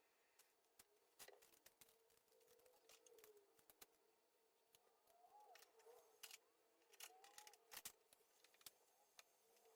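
Near silence with faint, scattered clicks and ticks, and a faint steady hum underneath.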